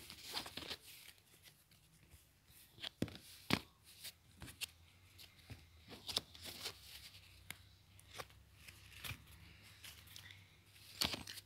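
Spanish-suited playing cards being handled and laid down on an upholstered cushion: irregular light card snaps and rustles, with gaps between them.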